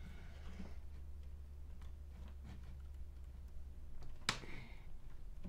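Small clicks of a screwdriver working at a stripped screw in an RC truck's suspension part, with one sharp click about four seconds in.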